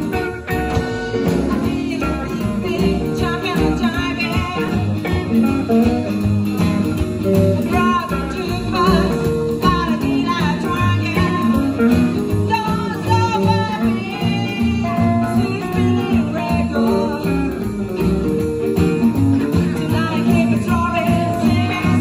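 Live band playing a song: upright bass, drum kit, acoustic guitar and hollow-body electric guitar, with a woman singing.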